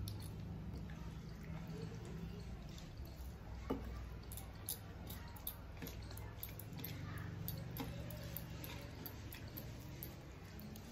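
Soft wet squishing of rice being mixed with curry by hand, with scattered small clicks and smacks, over a steady low hum.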